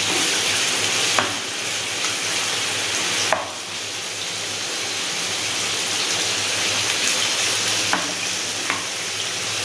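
Boneless chicken pieces sizzling in hot oil in a non-stick frying pan as a spatula stirs them, with a steady hiss and a few sharp clicks of the spatula against the pan.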